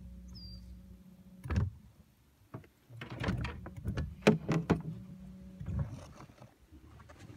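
Knocks and clatter on a boat, a single loud knock about a second and a half in and then a run of knocks in the middle. A low steady hum runs under the start and comes back briefly.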